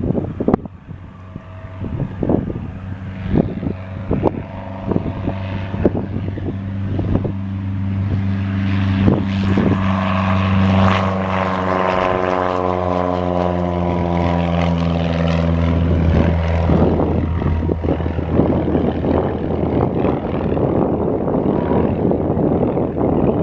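Piper Arrow PA-28R-200's four-cylinder Lycoming engine and propeller at take-off power, growing louder and then dropping steadily in pitch as the plane passes, with wind buffeting the microphone.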